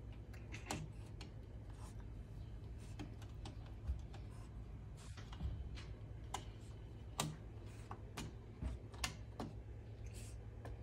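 Cat chattering at a bird it is watching: a scattering of short, sharp clicks at uneven intervals, the sound of prey excitement.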